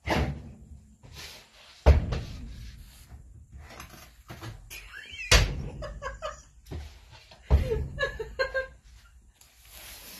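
A door banging shut four times, each a loud sharp bang that dies away quickly.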